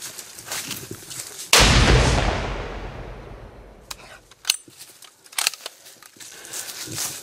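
A single rifle shot about a second and a half in, with a long rolling echo that dies away over about two seconds. A few sharp clicks follow a few seconds later.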